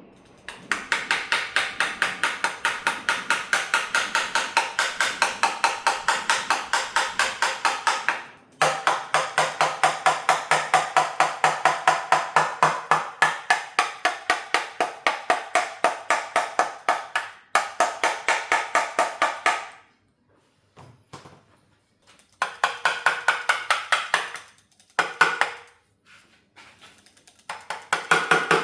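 Rapid, even clicking, about five sharp ticks a second, in runs of several seconds that stop and start again, with a couple of short bursts near the end.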